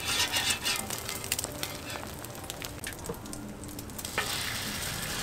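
Egg rolls frying on a hot flat-top griddle, sizzling, with sharp clicks and scrapes of a metal spatula on the plate. About four seconds in, the sizzle suddenly grows louder and steadier as beaten egg is spread onto the hot griddle.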